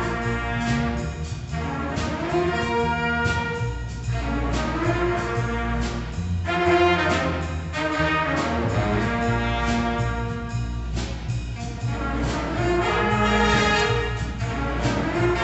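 Jazz band playing a blues: saxophones and brass sounding ensemble phrases, with short breaks between them, over upright bass.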